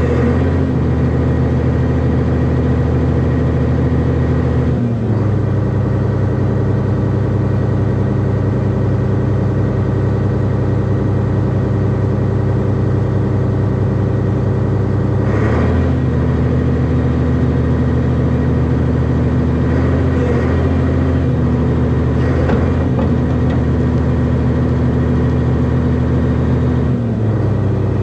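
Hyundai hydraulic excavator's diesel engine running steadily under working load, its note dropping about five seconds in, coming back up about fifteen seconds in and dropping again near the end as the hydraulics take and release load, with a few light knocks.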